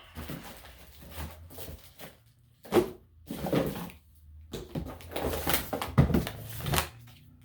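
Plastic parts and packaging being handled: irregular rustling with several knocks and clatters, loudest about three seconds in and around six seconds in.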